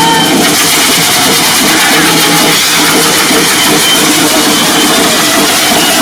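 Hand-held correfoc fireworks spraying sparks: a loud, steady hiss that does not let up.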